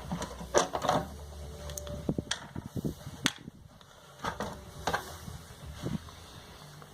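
Irregular light knocks and clacks, about seven in all, from a cat flap being pawed and pushed by a cat learning to use it.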